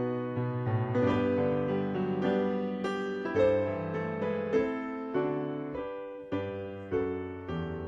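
Solo piano playing slow chords with a moving melody, each note struck and then decaying.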